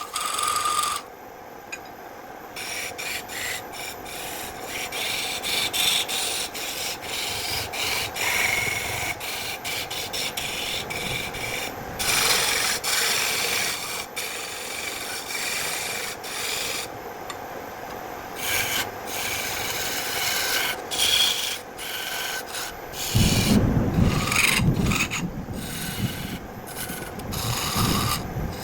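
Repeated scraping and rubbing strokes on wood, like filing or rasping, with louder, deeper strokes about 23 seconds in.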